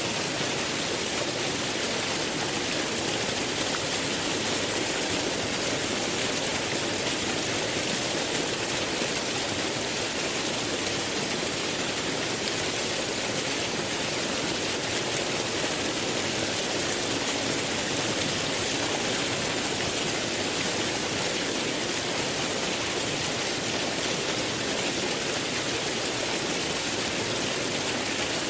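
Running water rushing steadily, an even hiss with no breaks or changes.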